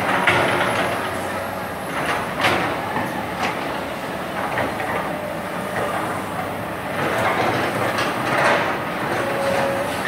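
Komatsu PC200 hydraulic excavator working: diesel engine running steadily, with scattered metallic clanks and a brief squeal near the end.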